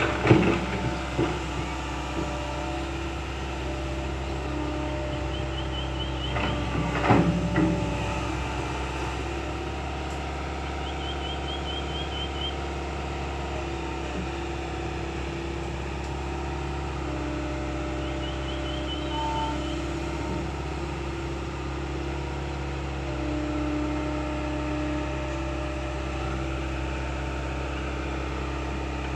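Kobelco hydraulic excavator's diesel engine running steadily, its note shifting as the hydraulics take load while the arm digs and swings, with a couple of sharp knocks about seven seconds in.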